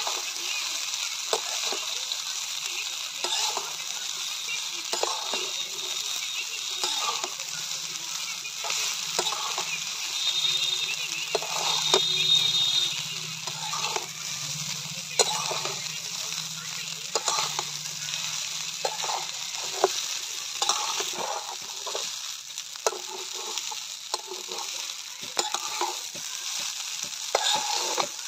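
Boiled fusilli pasta sizzling in a metal karahi with fried onion and tomato while a metal spatula stirs and tosses it, scraping against the pan in repeated strokes about once a second.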